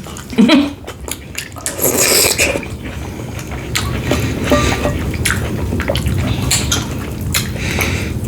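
Close-up eating sounds: wet chewing and mouth sounds with sharp clicks of cutlery and dishes, over a steady low hum. A brief voiced "mm" sounds about half a second in.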